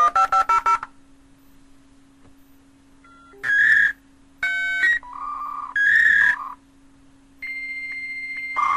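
Dial-up modem connecting. A quick run of touch-tone dialing opens it, followed by a few separate beeping tones. About seven seconds in, a steady high answer tone starts, and near the end the loud hissing screech of the modem handshake sets in.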